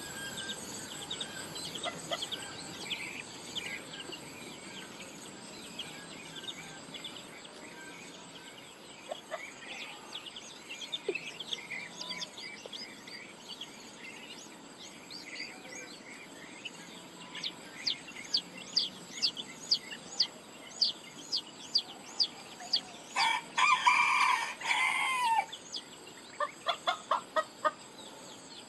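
Farmyard sounds: a rooster crows once, loud and drawn out for about two seconds, a little before the end, amid many short bird chirps that come thicker in the second half, over a steady high insect drone.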